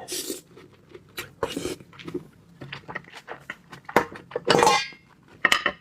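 Close-up eating and food-handling sounds over raw seafood: a run of small clicks and taps, with several short, louder noisy bursts.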